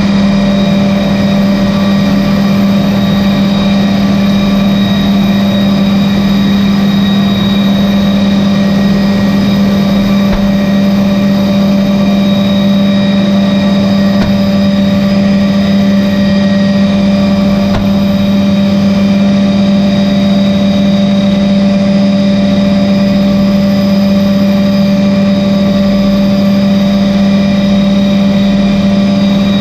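MD 520N helicopter's Allison 250 turboshaft engine and rotor system running steadily at hover, heard inside the cabin: a strong, even low hum with fainter steady high whining tones above it.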